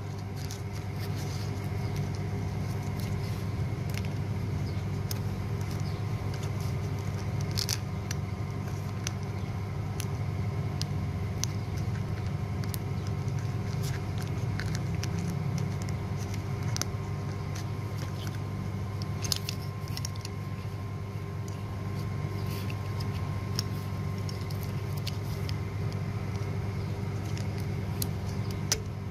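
Thin metal foil crinkling, with scattered small clicks, as gloved fingers press it around a lead battery terminal post, over a steady low hum that is louder than the handling.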